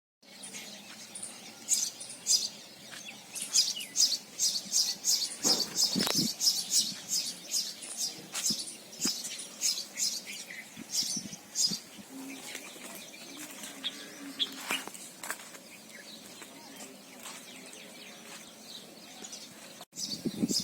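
Small birds chirping in quick, high chirps, several a second in the first half and thinning out later, over a steady background, with a thump about six seconds in.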